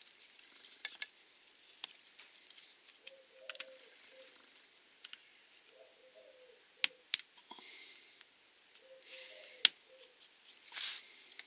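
Small sharp clicks and taps of plastic and metal, with soft rustles, as wiring is pushed into place inside an opened electric drill's trigger-switch housing. The sharpest clicks come as a few single snaps in the second half.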